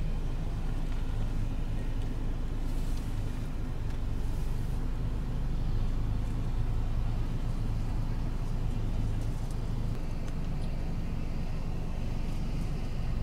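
An engine idling: a steady, low, even hum.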